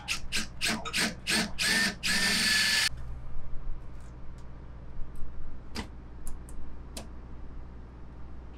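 Power drill triggered in short bursts about four times a second, then run steadily with a whine for about a second before stopping abruptly, while fixing an aluminium shelf. A few sharp clicks and knocks follow.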